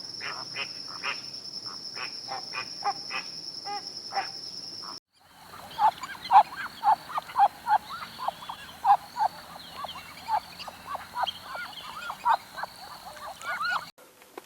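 Animal calls in two parts. First, scattered short calls over a steady high whine; then, about five seconds in, after a sudden cut, a busy run of short calls, several a second, that stops suddenly near the end.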